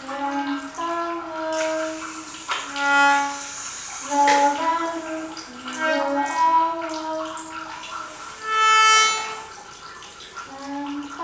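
Self-playing reed instruments sounding held notes in overlapping chords, each note swelling and fading; the brightest, loudest swells come about three seconds in and near nine seconds. Faint water trickling underneath.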